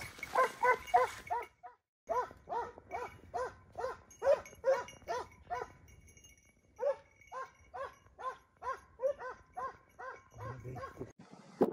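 Hunting dog barking in fast, regular runs of about four barks a second, with two short breaks.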